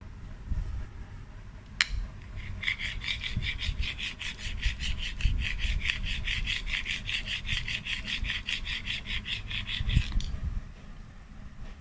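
Rapid back-and-forth scratching on a cured epoxy floor coating, about five strokes a second for some seven seconds: a scratch test of the hardened film. A sharp click comes just before the scratching starts.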